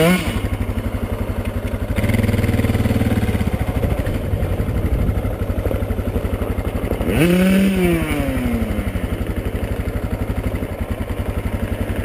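Two-stroke dirt bike engine running at a low, steady putter, with a stronger burst of throttle about two seconds in and a quick rev that rises and falls about seven seconds in.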